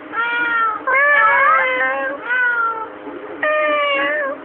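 Four high, drawn-out meow-like calls in a row, each well under a second long and dipping slightly in pitch at the end. A short rising glide overlaps the second call.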